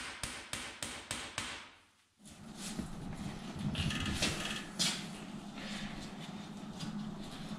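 Carpenter's hammer striking a steel floor-pan panel lying on a concrete floor, quick even blows about six a second, stretching the sheet metal so the beaded panel won't be flimsy; the hammering stops about two seconds in. After that a low steady hum with a few light knocks and clatter of the panel being handled.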